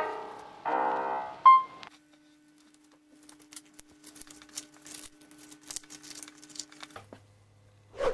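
Piano music ends about two seconds in. Then plastic cling wrap crinkles and crackles irregularly as it is stretched over a glass baking dish, and a short knock with a brief ring comes near the end.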